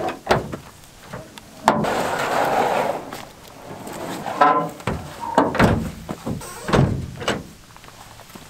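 A pickup's tailgate latch clicks and the tailgate drops open. Then a plastic Shappell Jet Sled scrapes, with a short squeal, as it is slid out of the truck bed, and lands on the snowy ground with two heavy thumps near the end.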